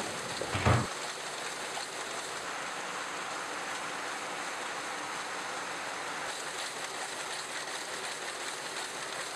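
Sulzer Rüti weaving looms running together in a mill shed: a steady, dense mechanical clatter, with a single thump less than a second in.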